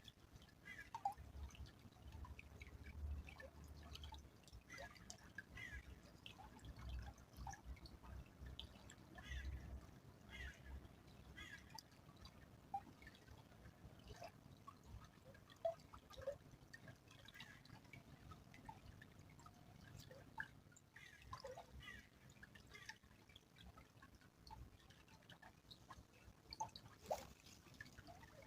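Faint trickling of a small stream: scattered drips and small plops of water, several each second.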